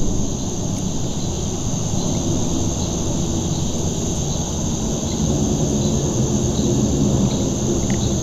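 A steady high, shrill insect drone, typical of crickets or katydids, over a constant low rumble. Faint regular ticks run through it.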